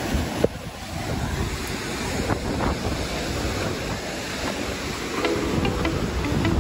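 Surf breaking against a rocky shore, a steady rushing wash with wind buffeting the microphone. A single sharp knock about half a second in.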